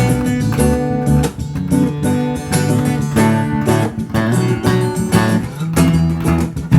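Background music: a song with strummed acoustic guitar and a bass line at a steady beat.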